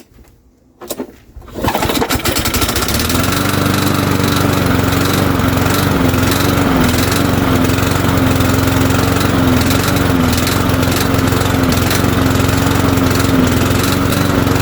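Cub Cadet walk-behind mower's Powermore 173cc single-cylinder engine pull-started on starting fluid. It catches about a second and a half in and runs steadily at speed, its pitch dipping briefly a few times.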